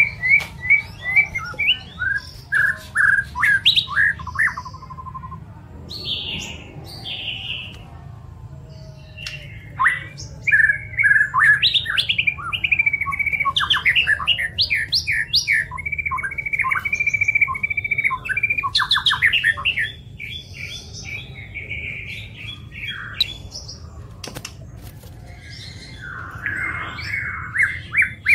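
White-rumped shama (murai batu) singing a varied song of whistled phrases, quick repeated chirps and trills, in bursts with short pauses, over a faint steady low hum.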